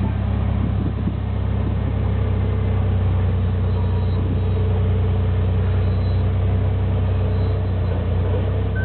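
Lifted Jeep Wrangler's engine running steadily in a low, even drone as it crawls up a steep slickrock notch.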